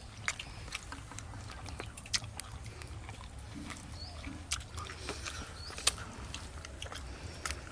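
Someone eating rice and fish curry by hand: irregular soft mouth clicks, smacks and chewing over a low steady hum.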